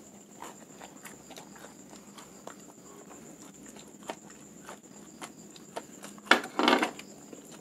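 Mouth sounds of someone eating bread topped with fried crickets: soft, scattered clicks and smacks of chewing. A louder, noisier sound of about half a second comes a little after six seconds in.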